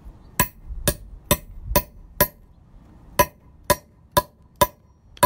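Claw hammer striking a grommet flaring tool to set a metal grommet and washer on its base: about ten sharp metallic whacks, each with a short ring, in two runs of five about half a second apart, with a pause of about a second between the runs.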